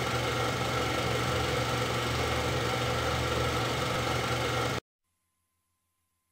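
A steady mechanical running noise that cuts off suddenly about five seconds in, followed by near silence.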